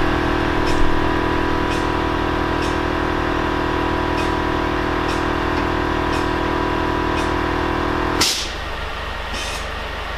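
Air Lift air-suspension compressor running with a steady electric whine as the WRX airs up, shutting off about eight seconds in with a short sharp hiss of air.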